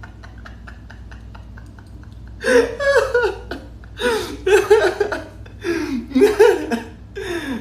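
A man laughing hard in about four breathy bursts, starting about two and a half seconds in. Before that there is only faint clicking.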